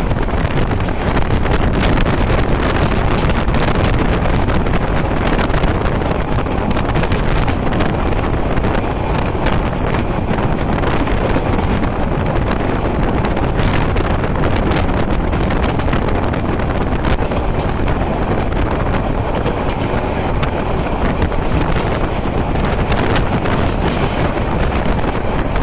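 Wind buffeting the phone's microphone at the open door of a moving passenger train, over the steady running rumble of the train on the track.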